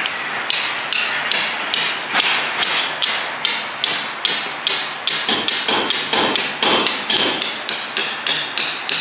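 Small hammer tapping a steel dowel into the cross-pin bore of a Dana 30 differential carrier, about three even metal-on-metal taps a second. The dowel is lining up the spider gears' holes for the new cross pin.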